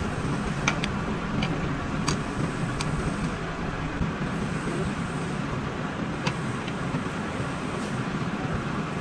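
Steady low rumbling noise, with a few short sharp clicks: several in the first three seconds and one more about six seconds in.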